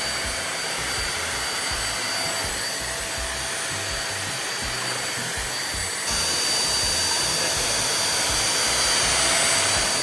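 Albatros 2-in-1 Cyclone 800 W stick vacuum cleaner running steadily, a rushing air sound with a thin high whine, getting a little louder about six seconds in.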